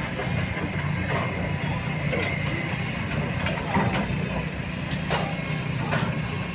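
An engine running steadily as a low rumble, with a few faint knocks and clicks over it.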